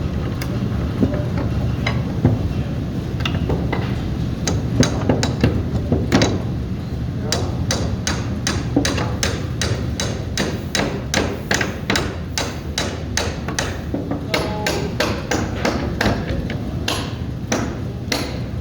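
Hammer striking metal over and over, a few scattered blows at first, then a quick steady run of about three strikes a second, over a steady low hum.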